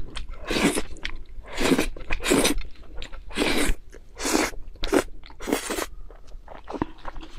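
Close-miked eating of spicy noodles: about seven loud slurps, each a few tenths of a second long, with wet chewing and mouth clicks in between.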